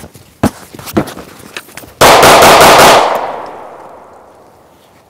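Several hand strikes landing on a padded striking bag, then a rapid string of handgun shots lasting about a second, loud enough to clip, with the echo dying away over the next second and a half.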